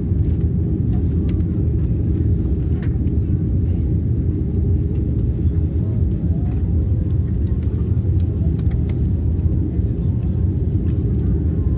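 Steady low rumble of an airliner heard from inside the passenger cabin, with a few faint clicks.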